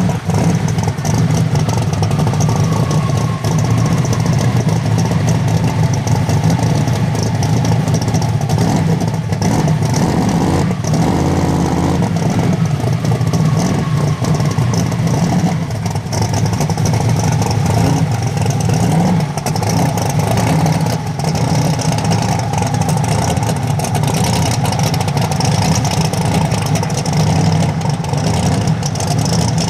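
Twin-turbo drag car's engine running steadily after a burnout, loud and even throughout. A high whistle drops in pitch near the start and again about midway.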